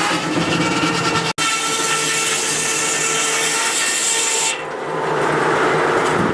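Large circular sawmill blade running at speed, with a steady ringing hum of the mill. A little past halfway the sound changes to a rougher rasp as the blade bites into the log.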